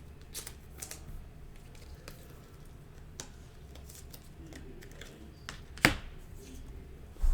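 Trading cards being handled and sorted: faint scattered clicks and rustles of card stock, with one sharper click about six seconds in.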